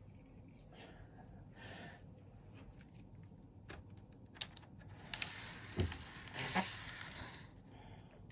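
Faint breathing, then from about five seconds in a run of light clicks and rustling as N-gauge model train cars and their packaging are handled.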